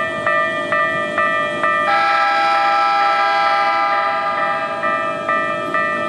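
Japanese level-crossing alarm bell ringing at about two strikes a second. About two seconds in, an approaching Keikyu train sounds its horn in one long chord of several tones that covers the bell and fades over two to three seconds, then the bell is heard again.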